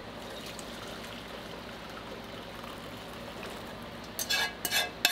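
Noodles being strained from a metal pan through a wire-mesh strainer into a glass Pyrex jug: a steady low hiss of draining liquid, then near the end a quick run of ringing clinks of metal against glass.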